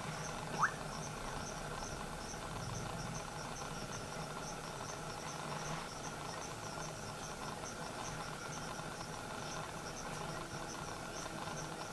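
Crickets chirping in a steady, even pulse of high chirps, about three a second, over a dense night-insect chorus. A short rising squeak stands out about half a second in.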